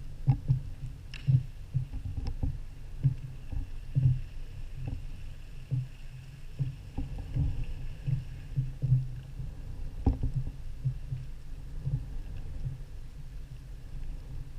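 Underwater sound picked up by a Diveye camera drone following a diver: irregular low thumps several times a second, a few sharp clicks, and a faint steady high whine.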